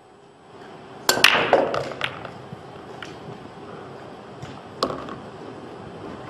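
Nine-ball break shot: the cue ball smashes into the rack about a second in, setting off a quick burst of sharp clacks as the balls scatter. After that come a few single clicks of balls striking one another and the cushions.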